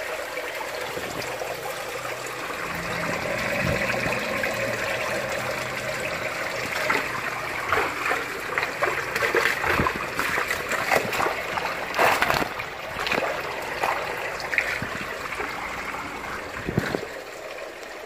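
Water splashing and churning in a fish tank as red tilapia thrash in shallow water during netting, over a steady trickle of running water. The splashes come thick and sharp from about seven seconds in.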